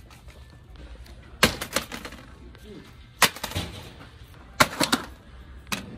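Plastic blister packs of pencils and a notebook dropped and shuffled in a red plastic shopping cart: sharp clacks in four short clusters, roughly every second and a half.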